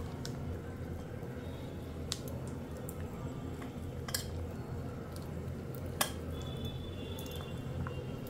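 Wheat flour and jaggery batter being mixed by hand in a bowl: soft wet squishing with a few light clicks against the bowl, about two seconds apart, over a steady low hum.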